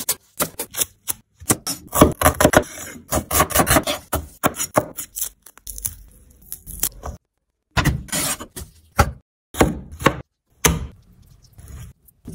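Chef's knife chopping a red onion on a wooden cutting board, a quick run of crisp cuts striking the board. Around the middle a fork scrapes the skin off a piece of ginger, and a few more separate strikes follow.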